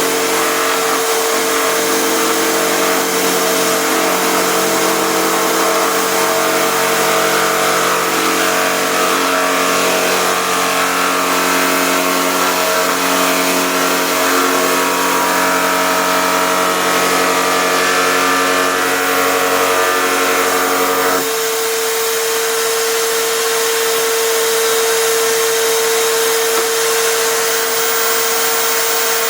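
Electric drill spinning a router bit in a homemade router table, with a steady mechanical whine. About 21 seconds in the sound changes: the lower tones drop away and a single steady whine carries on.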